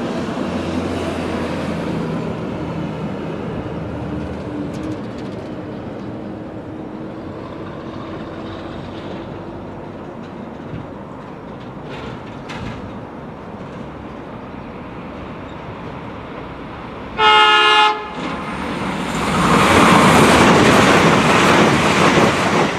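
Irish Rail 22000 class diesel multiple unit approaching with a steady engine drone. About seventeen seconds in it sounds one short horn blast, under a second long. Then comes the loud noise of the train passing close by.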